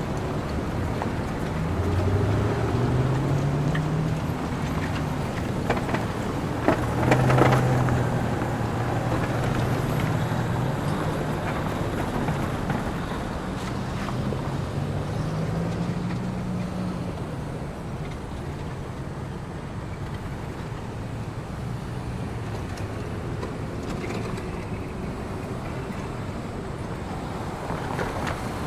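Small-town street ambience: motor vehicles driving by over a steady background hum, their engines rising and falling in pitch as they pass, the loudest pass about seven seconds in.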